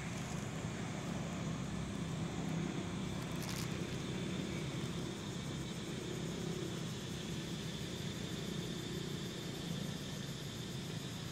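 Steady low rumble and hum of a motor vehicle engine running, with a faint hiss and no distinct events.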